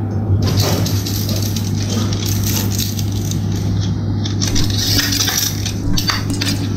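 Clinking and rattling of a PET plastic bottle on a metal bicycle spoke against a homemade aluminium bottle-strip cutter as it is worked by hand. It is a dense run of small clicks over a steady low hum.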